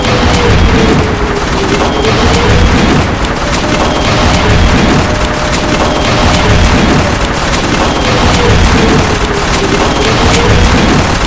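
A loud, dense soundtrack of rapid gunfire and booming explosions, with a tone that slowly falls and rises again behind it.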